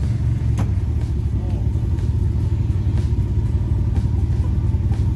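Side-by-side UTV engine running with a steady low rumble during a tow recovery, one buggy pulling another stuck in a muddy ditch on a strap. A short click sounds about half a second in.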